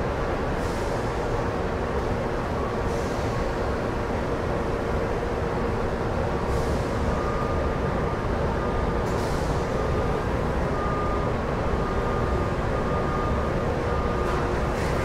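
Steady machinery noise of a cardboard-sheet cutting and strapping line: a continuous low rumble with a faint even hum, and a few short faint hisses.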